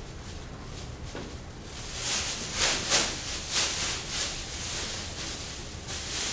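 A thin aluminized mylar sheet crinkling and crackling as it is unfolded and shaken out. The crackling starts quietly, then comes in a run of louder rustling bursts from about two seconds in.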